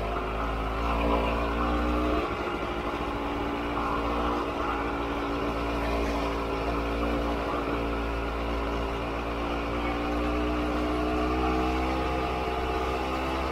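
Honda CRM250's two-stroke single-cylinder engine running steadily as the bike rides along. Its note drops about two seconds in, then slowly rises through the rest of the stretch.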